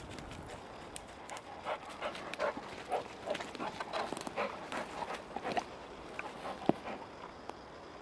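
Chocolate Labrador retriever panting close by in short, uneven bursts, with rustling in dry fallen leaves; a single sharp click sounds near the end.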